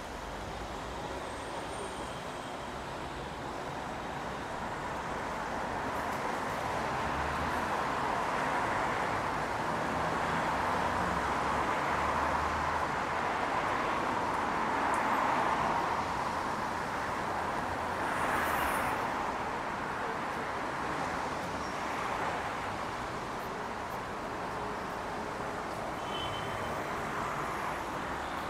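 City street traffic: a continuous wash of passing cars and other vehicles, swelling to its loudest around the middle and easing off again.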